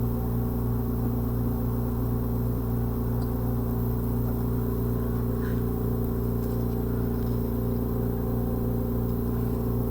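Steady low electrical hum at an even level, with a few faint light clicks.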